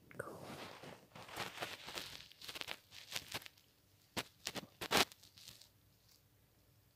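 Rustling and crackling handling noise on a phone's microphone, with short clicks and two sharp knocks about four and five seconds in, then fainter.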